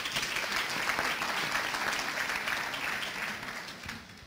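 Conference audience applauding after a talk: many people clapping together. The applause holds steady, then dies away near the end.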